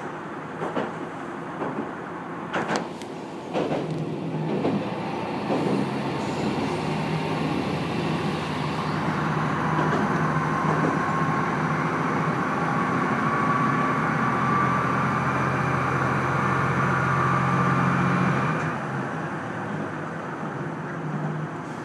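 Amagi Railway diesel railcar heard from inside the car: a few clacks of the wheels over rail joints in the first four seconds, then the diesel engine running steadily under power with a faint whine. The engine note drops away about three seconds before the end as the car coasts on.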